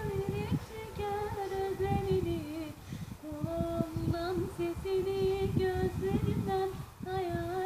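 A child singing a Turkish song solo, holding long notes that bend and waver between short breaths. A low, irregular rumble runs underneath.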